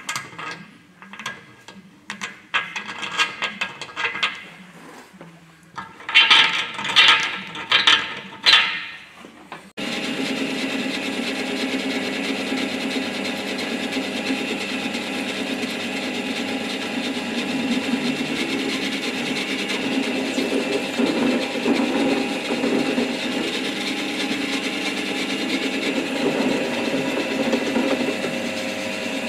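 A blunt scriber scratching on the steel of a truck's spring hanger box in short, irregular strokes, with a few loud harsh scrapes about six to nine seconds in. About ten seconds in the sound switches abruptly to a power drill running steadily as a step drill bores through the steel.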